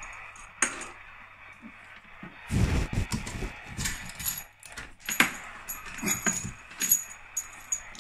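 Metal clinks, clicks and rattles of coaxial cable connectors being handled and unscrewed. Among them are a stretch of rustling handling noise and several sharp metallic ticks that ring briefly.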